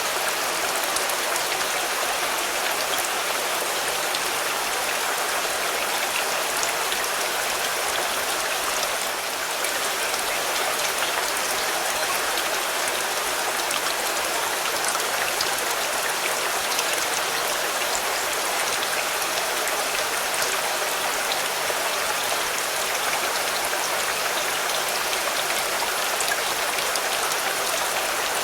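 Steady rain falling on a car, a dense even hiss of many small drop hits.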